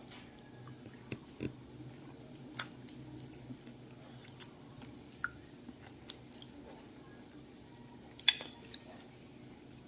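Someone eating fresh sugar apple (atis) close to the microphone: scattered small, wet mouth clicks and smacks, with a sharper cluster of clicks about eight seconds in.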